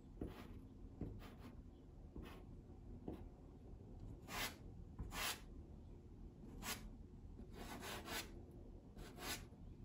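Pastel stick dragged across sanded pastel paper: a series of short, separate rubbing strokes, faint, coming more often in the second half.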